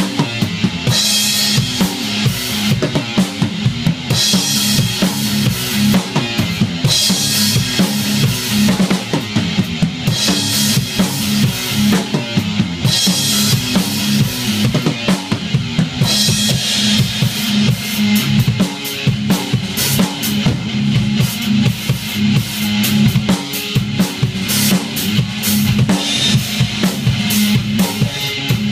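Rock band rehearsing: an acoustic drum kit played hard and fast, with rapid bass drum and snare hits and cymbal crashes every few seconds, over an electric guitar played through an amplifier.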